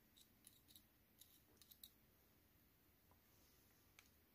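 Near silence with faint, light clicks and taps, several in the first two seconds and one near the end: a metal instrument dabbing heat-shield paste onto an orthodontic expander.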